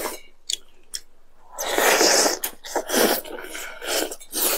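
Noodles in black bean sauce being slurped up, in quick noisy sucks: one long slurp about two seconds in and several shorter ones after it. There are a few light clicks in the first second.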